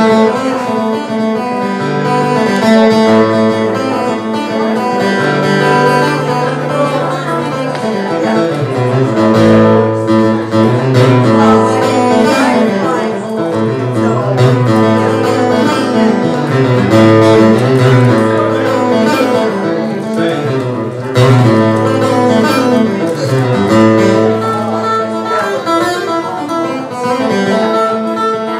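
Live acoustic guitar and Roland RD-700 stage piano playing a tune together, the piano holding sustained low notes under the guitar's chords.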